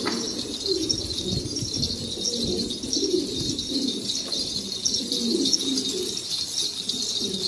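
Several pigeons cooing, low coos overlapping one after another, with a steady high hiss behind them.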